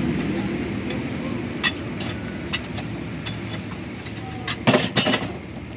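Sharp metallic clicks and clinks of a steel pipe wrench against a hydraulic bottle jack's steel cylinder held in a vise, a few scattered ones and then a loud pair near the end, over a steady low hum.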